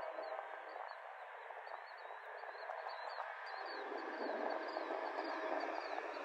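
Steady running noise of a diesel railroad locomotive, with small birds chirping in short repeated notes over it.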